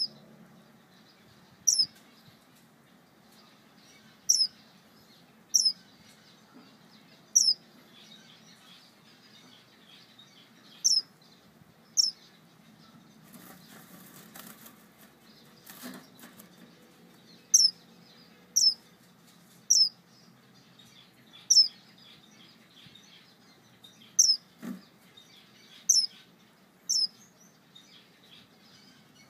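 Male star finch calling to his mate: loud, short, high notes, each a quick downward slur, repeated about fourteen times at uneven gaps of one to three seconds. A brief flutter of wings comes about halfway through.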